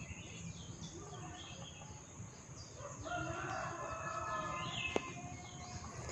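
A rooster crowing once in the background, a call of about a second and a half, over small birds chirping repeatedly. A single sharp click near the end stands out as the loudest sound.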